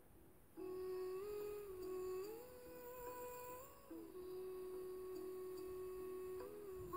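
Soft hummed melody as background music: a single voice holding long notes that step slowly up and down, starting about half a second in.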